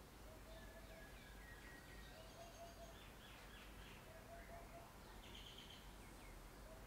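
Near silence: quiet room tone with faint birdsong in the background. A short low note comes four times, about two seconds apart, with fainter high chirps and trills between them.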